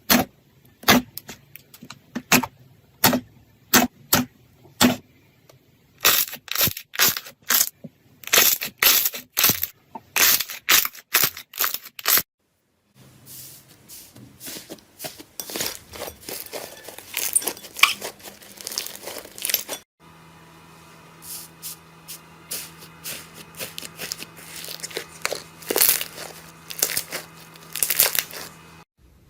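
Slime being squeezed and pressed by hand, giving sharp clicking pops about once or twice a second. Later it turns to denser, continuous crackling.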